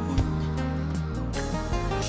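Live slow ballad accompaniment led by acoustic guitar, with sustained low notes underneath.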